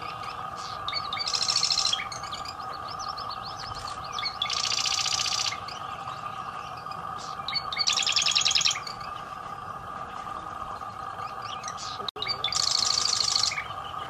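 Marsh wren singing: four rapid, rattling trills about a second long each, a few seconds apart, with softer short notes between them. A steady hum runs underneath.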